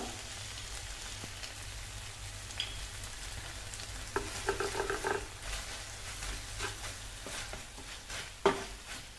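Wooden spatula stirring and scraping sliced capsicum and onion through a thick sauce in a grill pan, over a low steady sizzle. A sharp knock near the end.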